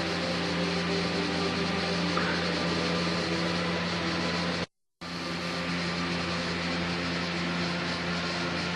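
Air-conditioning condenser unit running: the condenser fan blowing air through the coil over a steady hum. The sound drops out briefly just before halfway, then carries on the same.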